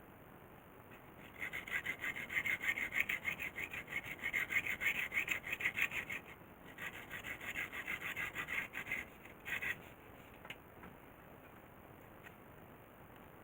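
Hand sawing: quick, even back-and-forth strokes that stop briefly about six seconds in, pick up again and stop shortly before ten seconds.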